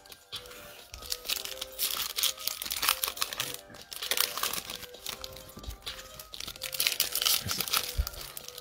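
Foil wrapper of a Panini Prizm basketball card pack crinkling and tearing as it is pulled open by hand, with a steady run of rustling. Quiet background music plays underneath.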